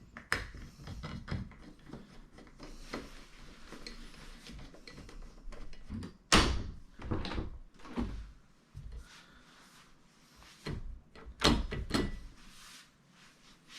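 Knocks and clunks of a fingerprint door lock's metal parts being handled and fitted on a door, with a few sharp knocks standing out about six, eight and eleven to twelve seconds in.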